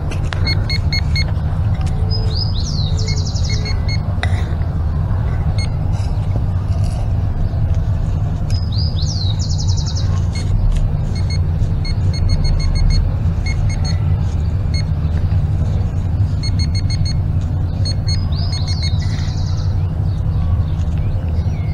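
Handheld metal-detecting pinpointer beeping in quick runs of short high tones as it is swept over the dug soil, over a steady low rumble. A bird sings the same short phrase three times.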